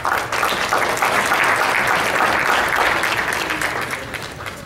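Audience applauding, starting abruptly and fading near the end.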